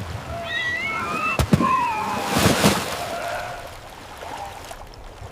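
Water sloshing and splashing around a towed inflatable skiff, loudest in a rush of splashing about two seconds in, after a sharp knock. At the start an animal gives high, gliding whining calls.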